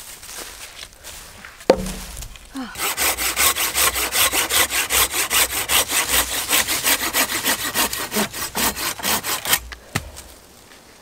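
A hand pruning saw cutting through a dead log, with fast, even back-and-forth strokes for about seven seconds before stopping. A heavy wooden thump comes about two seconds in, just before the sawing starts.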